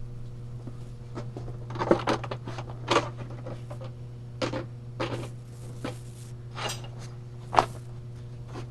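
Welding gear being handled on a steel bench: the welding helmet lifted away and leather welding gloves pulled on, giving a string of short rustles and knocks, the sharpest one near the end. A steady low hum runs underneath.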